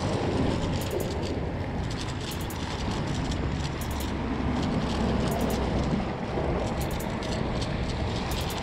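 Small waves washing and splashing against a rocky shoreline, with short sharp splashes every second or so over a steady low rumble.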